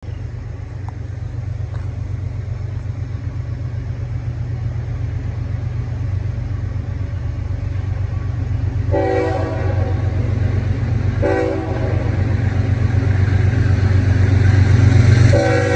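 CSX freight locomotive horn sounding three blasts: a long one about nine seconds in, a short one a second or so later, and another starting near the end. Under the horn is a low rumble that grows steadily louder.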